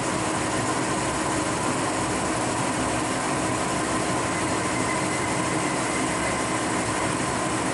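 Metal lathe running steadily, turning down a steam-engine cylinder blank to its final diameter: an even mechanical noise with a faint steady whine.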